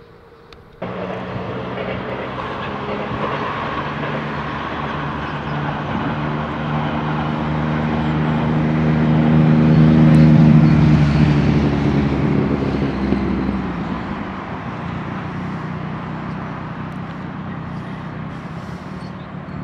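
A train passing, its engine hum swelling to a peak about halfway and then fading, the pitch dropping slightly as it goes by. The sound starts abruptly about a second in.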